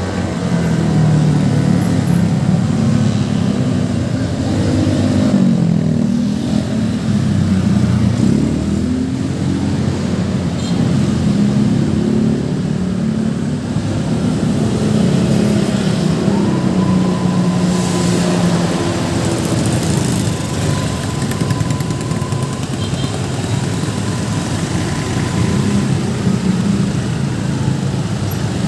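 Road traffic passing, with vehicle engines rising and falling in pitch as they go by. A thin steady tone sounds for several seconds past the middle.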